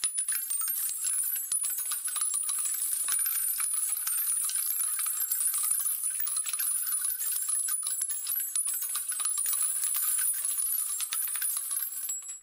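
Logo-intro sound effect: a high, glittering rattle of many tiny clicks and tinkles, with no low end, that cuts off abruptly at the end.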